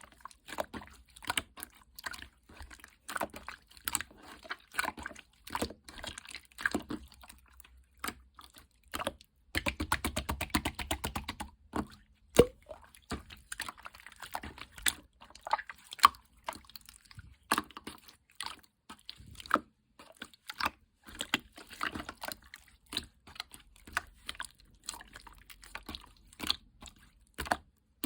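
Hands squishing and poking a glue-based slime, making irregular wet clicks, snaps and pops, with a quicker run of rapid clicking about ten seconds in.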